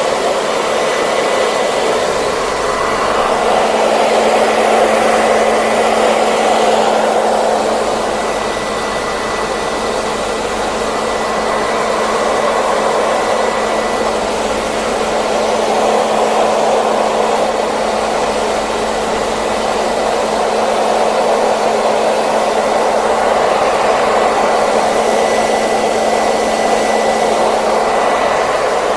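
Hair dryer running steadily: a continuous rush of blown air over a steady motor hum and a faint high whine, its level gently swelling and easing.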